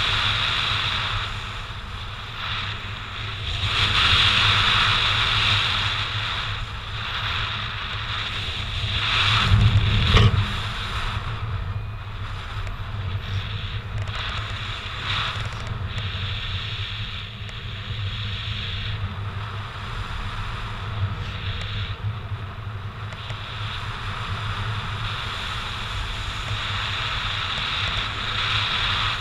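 Airflow buffeting the microphone of a camera worn in paraglider flight: a steady rushing that swells and eases every few seconds, with the strongest gust about ten seconds in.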